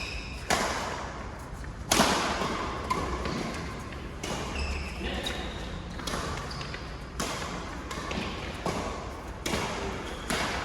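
Badminton rally: rackets striking the shuttlecock again and again at irregular intervals, the hardest hit about two seconds in. Shoes give short squeaks on the court floor around the middle.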